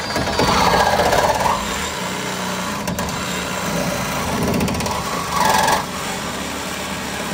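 Power saw running steadily while cutting through a truck's bump stop, with a brief louder surge about five and a half seconds in.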